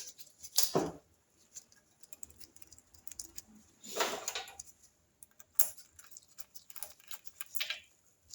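Small engine parts and hand tools being handled while the oil pump drive nut is fitted: scattered light metallic clicks and clinks, with two brief louder scraping sounds, one under a second in and one about four seconds in.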